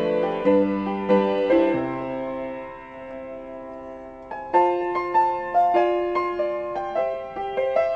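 Background piano music: slow single notes and chords, with a softer lull partway through, then a run of evenly repeated notes.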